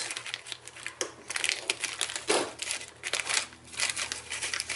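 A plastic packaging pouch crinkling and crackling as it is slit with a utility knife and pulled open. The crackles come irregularly, loudest a little over halfway through.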